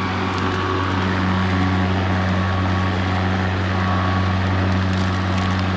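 Greenworks 40-volt battery lawn mower running steadily, a constant electric motor and blade hum, relatively quiet for a mower and running at its lower automatic speed.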